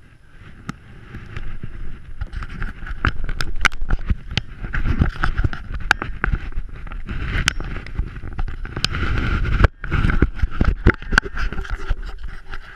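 Handling noise close to the microphone: rustling and many sharp knocks and clicks over a low rumble, with wind on the microphone.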